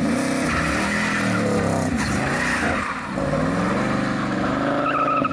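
LS V8 in a Chevrolet Beretta launching hard off a two-step rev limiter set at 3,800 rpm, the engine revving loudly with a wavering pitch as the street tires spin and squeal. The pitch dips about three seconds in, then climbs again.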